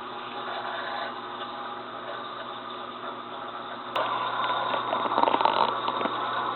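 Reef Octopus 152S protein skimmer running in an aquarium sump: a steady pump hum with water and air bubbling. About four seconds in there is a click, and the water-and-bubble sound becomes louder.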